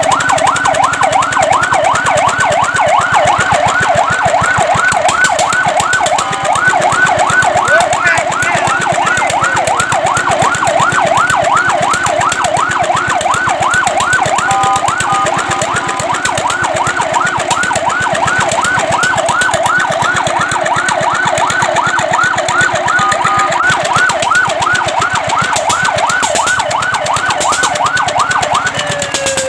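Fire truck's electronic siren in fast yelp mode, its pitch sweeping rapidly up and down about four times a second. Twice it breaks briefly into steady tones, and near the end a falling glide comes before the yelp resumes.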